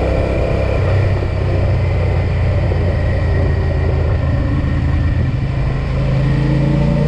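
Suzuki SV650S's 645 cc 90-degree V-twin running through an Ixil aftermarket exhaust, a steady low engine note whose pitch climbs a little near the end as it revs up.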